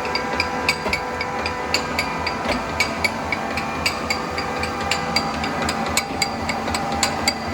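Binns and Berry Trident L1000 lathe running, a steady hum and whine with a sharp metallic ticking about three to four times a second.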